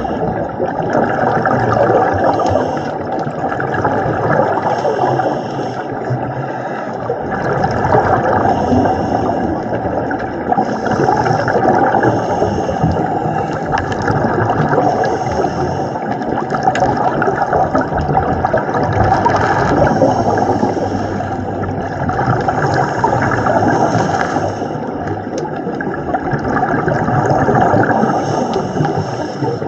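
Underwater sound in the sea: steady rushing and gurgling water noise that swells and fades every few seconds.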